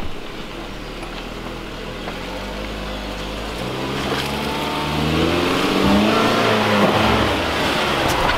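2017 Jeep Cherokee Trailhawk's engine revving as the SUV drives over a dirt trail, growing louder as it nears. The revs climb from about halfway through, then ease off.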